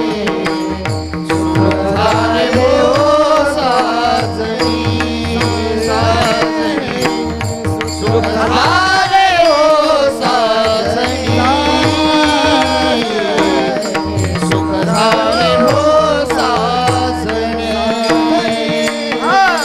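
Marathi devotional abhang singing: a male voice draws out a long, ornamented melodic line without words over a steady drone and a hand-drum beat. The drum drops out near the end.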